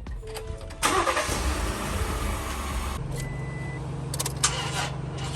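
A car engine cranks and catches about a second in, then settles into a steady idle from about three seconds in. This is the donor vehicle being started to jump a dead battery.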